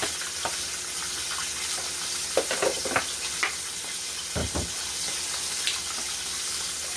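Chicken frying in hot oil with a steady sizzle, broken by a few light clicks around the middle and a dull thud about four and a half seconds in.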